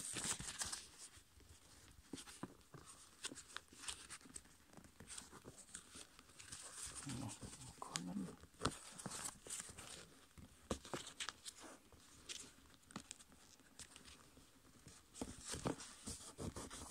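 A sheet of copy paper being folded and creased by hand on a tabletop: faint rustling and scraping, with many short crinkles and ticks as the fingers press and slide along the folds.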